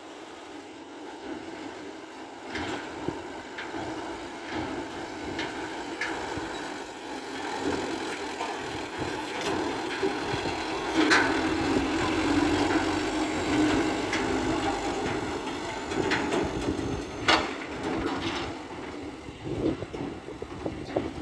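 A light dump truck's engine running as it drives over a rough dirt track, growing louder in the middle as it passes close. A few sharp knocks come through.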